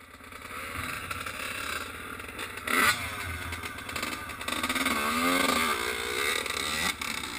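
Two-stroke Yamaha YZ85 dirt bike engines running and revving in uneven bursts, their pitch rising and falling, with the loudest rev about three seconds in.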